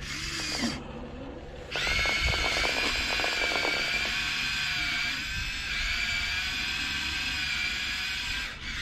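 Electric motor of a radio-controlled model excavator starting up about two seconds in and running with a steady, high-pitched whine like a drill, then cutting out briefly near the end.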